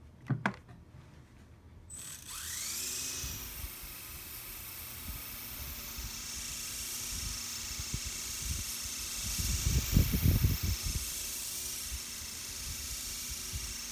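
Small electric RC helicopter spinning up with a rising whine about two seconds in, then a steady high whir of motor and rotor blades as it hovers. A brief cluster of louder low thumps comes about ten seconds in.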